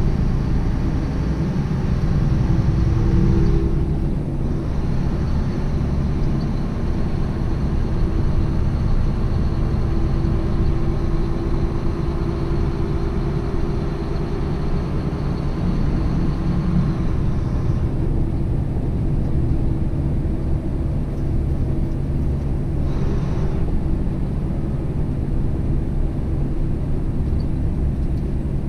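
Truck's diesel engine and road noise heard from inside the cab while driving, a steady low drone. A faint high whine runs along with it and stops about two-thirds of the way through.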